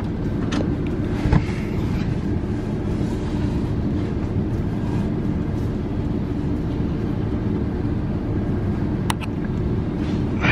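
A steady low mechanical hum, with a sharp click about a second in and another near the end.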